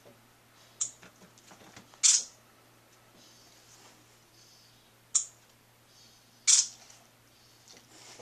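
A tortoiseshell kitten hissing and spitting at a dog, four sharp hisses a second or more apart, the second and fourth longer and loudest.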